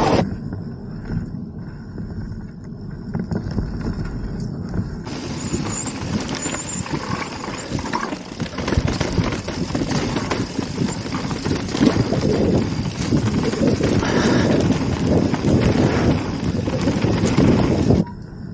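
Mountain bike riding over a rough dirt trail: tyres crunching and the bike rattling with many small knocks over bumps. It gets much louder about five seconds in and cuts off suddenly near the end.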